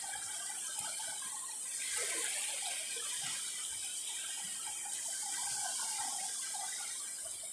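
Shallow seawater sloshing and trickling close by, over a steady high hiss.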